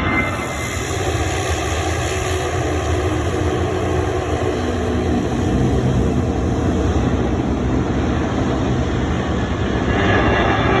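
Jet airliner engine noise: a steady, loud noise with a faint hum in the first few seconds and a brief swell near the end.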